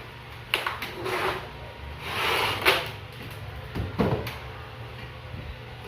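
A broken cabinet being dismantled by hand: three sharp knocks about a second and a half apart, with scraping and sliding of its parts between them, and a short sound falling in pitch just before the last knock.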